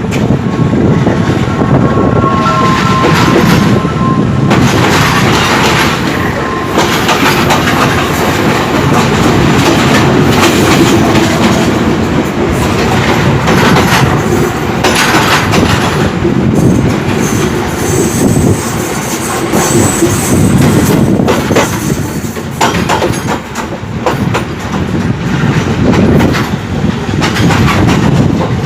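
Express train running on the rails, its wheels clattering steadily over the rail joints, with a faint high-pitched squeal of wheels a little past the middle.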